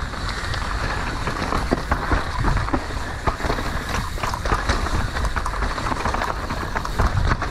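Mountain bike descending a dirt singletrack at speed: a steady rush of tyres rolling over tacky, damp dirt, with many small clatters of chain and frame as it runs over bumps.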